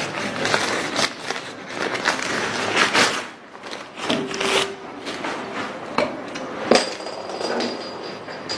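Irregular knocks, clatter and rustling of objects being handled on a desk close to the microphone, densest in the first three seconds, with a few sharp knocks later on.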